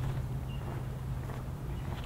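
Walking footsteps, about one every two-thirds of a second, over a steady low hum that fades near the end, with a few short bird chirps.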